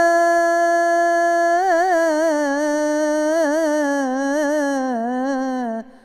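A woman singing unaccompanied Islamic devotional chant (inshad), drawing out one long note. It holds steady for about a second and a half, then wavers in ornamented turns as it slowly falls in pitch, and breaks off near the end.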